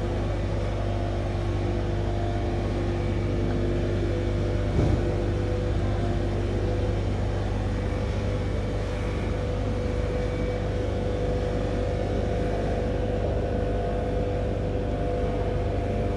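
Steady low rumbling hum of gallery background noise with a few faint steady tones above it, and a single brief knock about five seconds in.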